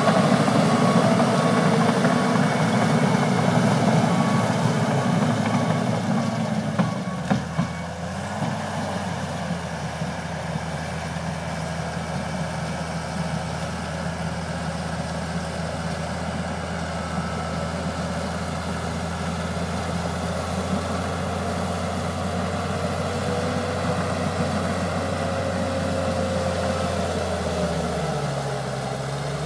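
John Deere 700H crawler dozer's diesel engine running under load with its backup alarm beeping steadily, then throttling down to a steady idle about seven seconds in, with a few knocks as it settles. The idle drops a little lower near the end.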